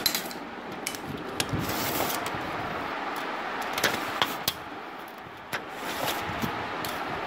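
Handling noise as a handheld camera is moved about, with scattered light clicks and rustles over a steady background hiss.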